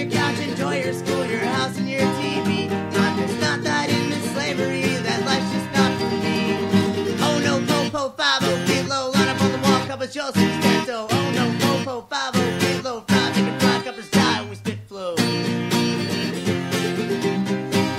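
Acoustic guitar strummed hard in an instrumental break of a folk-punk song. In the middle the chords stop short and restart several times.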